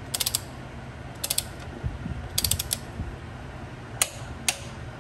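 Ratchet wrench clicking as it tightens a hex-bit bolt on a supercharger drive kit's idler bracket to 25 foot-pounds: three short runs of rapid ratcheting clicks, then two single sharp clicks near the end.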